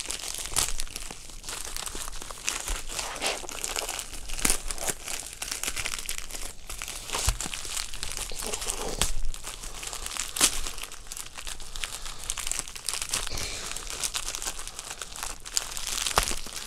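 White plastic mailer bag crinkling and crumpling as hands pull and twist it to tear it open, with many irregular sharp crackles.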